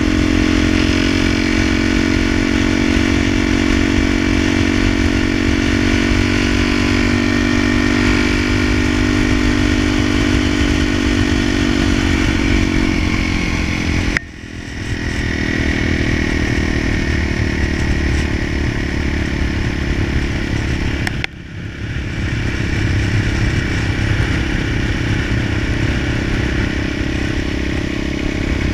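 Dual-sport motorcycle engine running steadily at cruising speed. The engine note eases down a little, then the sound dips suddenly twice, about halfway through and again some seven seconds later, picking back up within a second each time.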